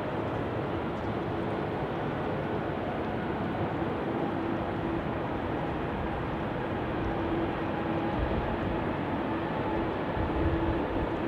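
Boeing 777-300ER's twin GE90 turbofan engines on short final and landing: a steady jet rumble with a held humming tone, growing somewhat louder in the last few seconds as the aircraft comes closer.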